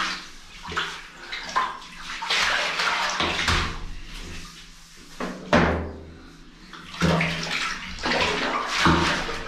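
Water splashing and swishing inside a stainless steel bulk milk tank as its inside is scrubbed and rinsed by hand, in irregular swishes a second or two apart.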